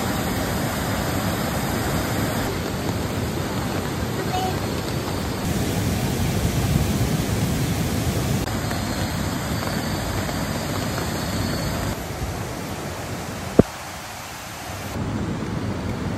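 Steady rushing of a river over rocks, its level and tone shifting abruptly a few times. A single sharp click near the end, followed by a brief quieter stretch.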